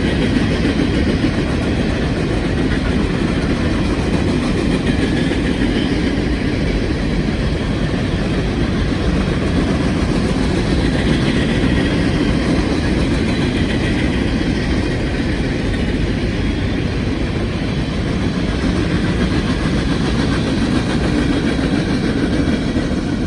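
Freight cars of a CSX coke train rolling past, a steady rumble of steel wheels on the rails.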